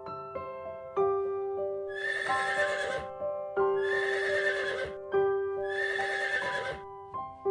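A horse whinnying three times, each call lasting about a second, over soft background piano music.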